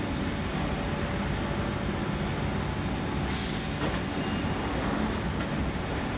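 Central line 1992-stock tube train running in and drawing to a stop, with a steady rumble throughout. About three seconds in there is a sudden sharp hiss of released air that fades within half a second.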